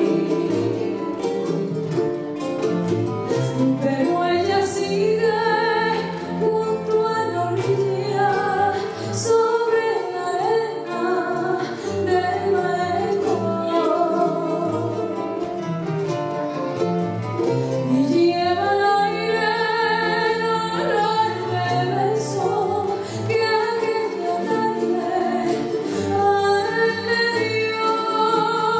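Live acoustic music: a woman sings held, wavering notes over two plucked acoustic guitars.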